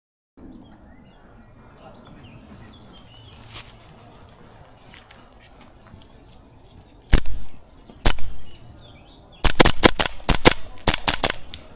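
Birds chirping, then replica airsoft guns firing: a single sharp shot about seven seconds in, another a second later, and a quick string of shots near the end.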